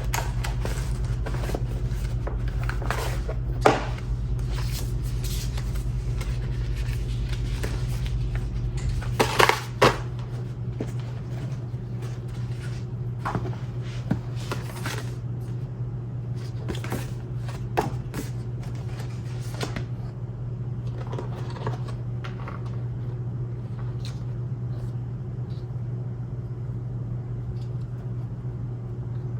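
Cardboard and plastic packaging being handled during an unboxing: scattered rustles and clicks with a few sharper knocks, over a steady low hum. A deeper rumble under the hum stops about nine seconds in.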